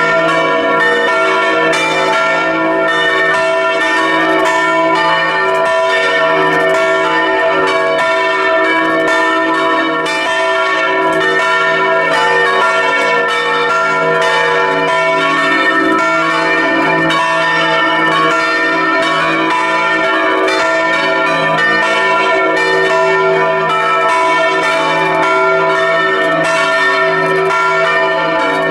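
Several bronze church bells, swung by electric motors, ring together in a continuous full peal. Their overlapping strikes and long ringing tones are heard close up inside the belfry.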